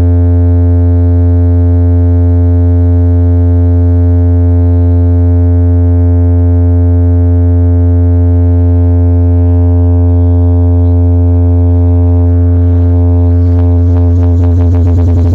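A low-frequency bass test tone played loud through a sound system's 21-inch subwoofers, held at one steady low pitch with a stack of overtones above it.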